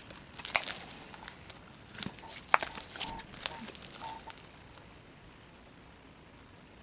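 Homemade glue slime being squished and stretched in the hands, a run of small, sticky clicks and crackles that stops about four seconds in.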